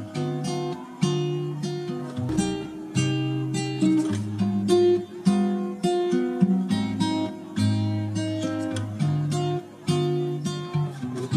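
Background music on acoustic guitar, plucked and strummed notes in a steady rhythm.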